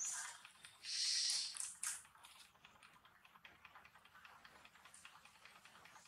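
A young macaque eating a ripe mango: wet chewing and smacking with many small clicks, and one louder hiss about a second in.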